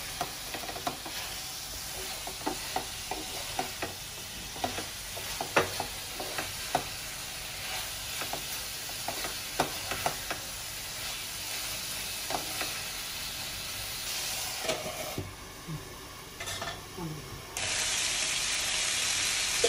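Wooden spatula stirring and scraping chicken pieces in a yoghurt sauce in a frying pan, with light knocks against the pan over a steady sizzle. The chicken is nearly cooked and the oil is separating from the sauce. The sizzling hiss gets louder near the end.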